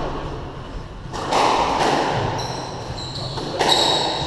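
Squash ball being struck and slamming into the walls during a rally, two hard hits about two and a half seconds apart, each echoing round the enclosed court. Between them, shoes squeak shrilly on the wooden floor.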